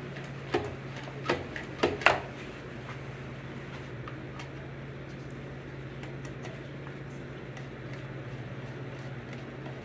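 Four sharp clicks and knocks in the first two seconds as parts are handled and fitted on a Briggs & Stratton lawn mower engine during reassembly, the last one the loudest. A steady low hum runs underneath.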